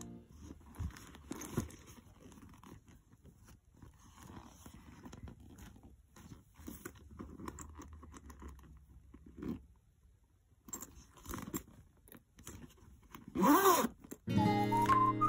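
Soft rustling and small clicks from a pebble-grained Boston bag and the things inside it being handled. About thirteen seconds in comes one short, loud zip as the bag's zip fastener is pulled shut. Guitar music starts just after.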